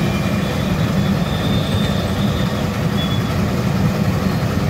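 Boondi batter frying in a large kadai of hot oil: a steady bubbling sizzle over a constant low rumble.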